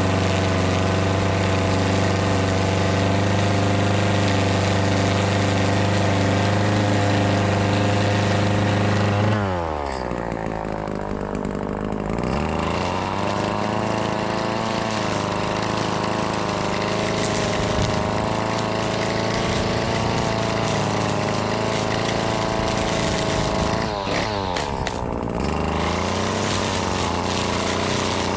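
Two-stroke string trimmer engine running at full throttle, then dropping sharply to idle about a third of the way in as the throttle is let off. It revs back up and runs at working speed with a slightly wavering pitch, drops off briefly once more near the end and picks straight up again.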